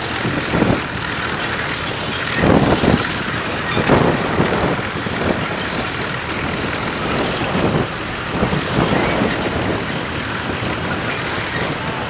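Fordson Major County crawler tractor's engine running steadily under load as it pulls a plough, with a few brief louder swells.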